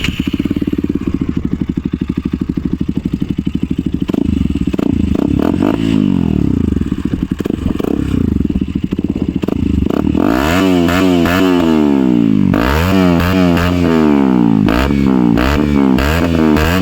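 Motorcycle with an aftermarket Akrapovic exhaust, just started and still cold, idling steadily for about ten seconds, then revved in a series of quick throttle blips that rise and fall.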